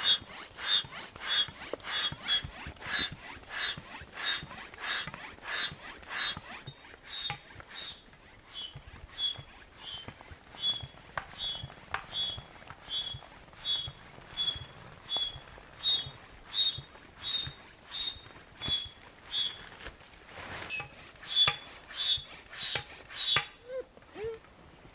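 Footsteps crunching through cold snow at a steady walking pace, about two steps a second, each with a short high squeak. The steps stop about a second and a half before the end.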